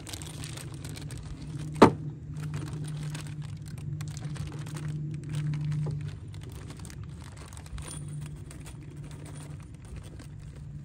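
Small metal hardware, stainless steel screws and washers, clinking and rattling as the bag and pieces are handled, with one sharp click about two seconds in. A steady low hum runs underneath.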